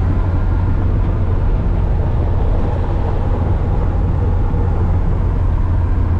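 Inside the cab of a 1993 Ford F-150 with its 300 cubic-inch inline-six, cruising at a steady speed: a steady low engine and drivetrain drone over tyre noise on a gravel road.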